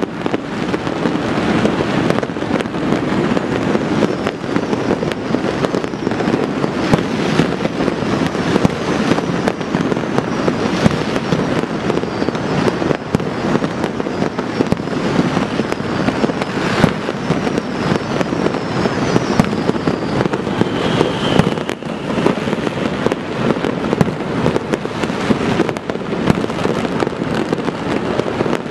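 Fireworks and firecrackers going off all at once across a city, countless pops and bangs overlapping into a continuous crackle with no pause.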